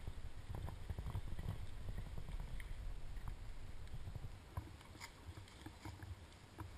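Faint sound of a mountain bike rolling over dry leaf litter: a low rumble with light crackles that stops a little over four seconds in. After that come a few scattered ticks of footsteps on leaves.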